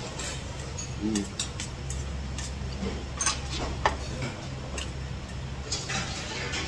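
Metal spoon and chopsticks clicking a few times against a stainless steel soup bowl while yukgaejang is slurped and chewed, over a steady low hum.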